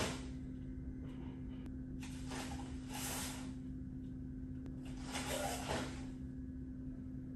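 A taekwondo practitioner's movements through a form: his dobok uniform swishes and his bare feet brush the foam mat in a short rush of noise with each of three moves. A steady low hum sounds underneath.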